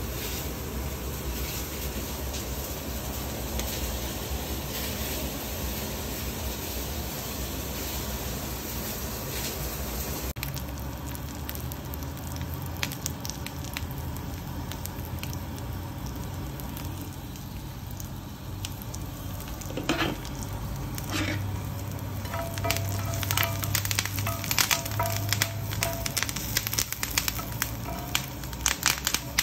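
Garlic cloves and rosemary sizzling in hot oil in a ridged grill pan, a steady hiss. From about two-thirds of the way in, a utensil clicks and scrapes against the pan as the garlic and herbs are moved around.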